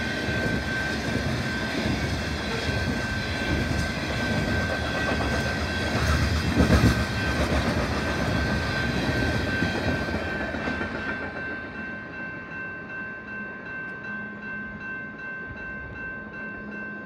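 Freight train of covered hopper cars rolling past, its wheels clattering on the rails, with a louder clanking burst about six to seven seconds in. The train noise fades after about eleven seconds as the end of the train goes by, leaving the level-crossing warning bell ringing steadily.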